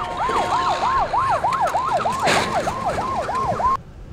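Emergency-vehicle sirens in a fast yelp, the louder one sweeping up and down about three times a second, with a second siren higher in pitch. A short loud noise comes about two seconds in, and the sirens cut off suddenly near the end.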